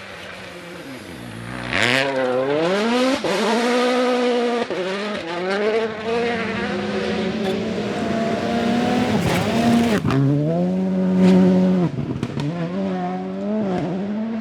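Rally car engine at full throttle, revving up through the gears again and again and dropping back when the driver lifts off, with sharp cracks between the shifts. It gets loud about two seconds in.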